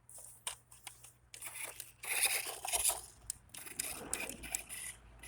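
Irregular scraping and crunching with a few sharp clicks, loudest about two seconds in: an off-road RC car's tyres scrabbling against a board as it tries to climb up it.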